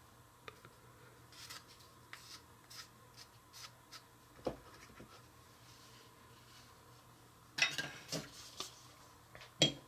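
Small spoon scraping and tapping frosting into a pink plastic snack-case compartment: faint soft scrapes and light clicks, one louder knock about halfway through and a few sharper clacks near the end.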